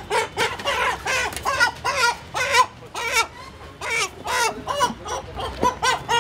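Desi chickens squawking and clucking as they are caught and held by the legs, in a rapid series of short calls, several each second.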